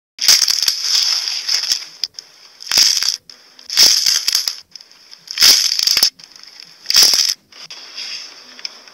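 Slime squeezed by hand through a porous foam sponge, crackling and squelching in about five separate squeezes, the first the longest.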